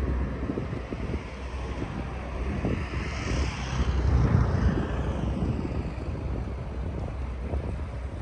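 Traffic noise with wind on the microphone: a steady low rumble, and a vehicle passing about three to five seconds in, its hiss falling in pitch as it goes by.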